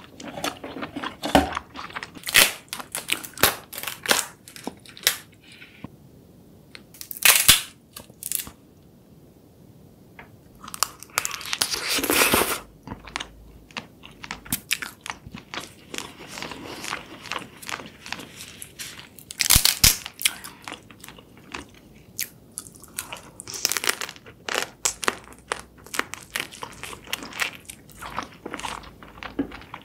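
Close-miked eating sounds: crab and prawn shells being cracked and pulled apart by hand, with crunching and wet chewing of sauced seafood. The cracks and crunches come irregularly, with a few louder bursts.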